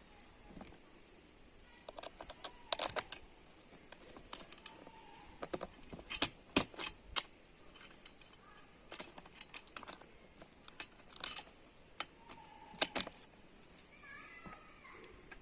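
Irregular sharp clicks and clinks of metal and plastic parts being handled and fitted as a chainsaw adapter's cover is mounted on an angle grinder, loudest in clusters about three, six to seven and thirteen seconds in.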